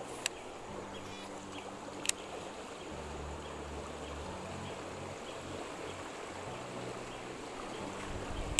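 Fast-flowing river water rushing steadily, with two sharp clicks in the first couple of seconds.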